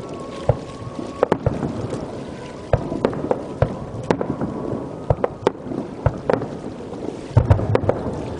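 Fireworks bursting: a string of irregular sharp bangs, a few each second, with a heavier cluster of deep booms near the end.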